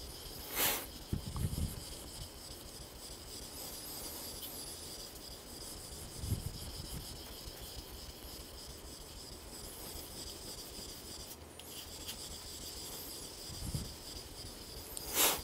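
Kitchen knife blade sharpened on a wet Aizu Nakatoishi natural whetstone, a medium-grit Japanese stone worked with a slurry: a steady scraping grind of steel stroked back and forth over the stone. Two brief, louder, sharper sounds come about a second in and near the end.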